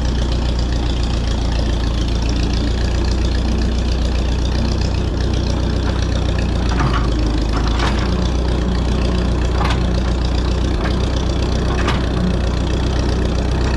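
Tractor engine idling steadily with a deep, even drone.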